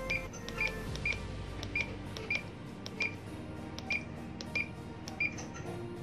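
Furuno GP-32 GPS navigator's key beeps: a short high beep with each press of the cursor key, repeating about every half second to second, roughly ten times, as a waypoint name is scrolled in letter by letter.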